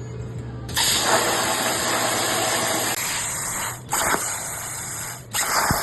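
Plasma cutter cutting steel: a harsh, steady hiss that starts about a second in and breaks off briefly twice as the torch stops and restarts.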